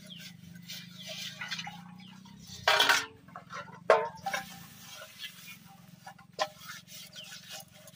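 Metal cooking pots and bowls clanking together as they are washed and stacked, with a loud clatter about three seconds in and a sharp knock a second later. A steady low hum runs underneath.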